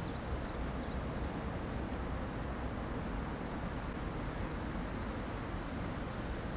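Steady low outdoor background rumble, with two faint, short, high bird chirps about three and four seconds in.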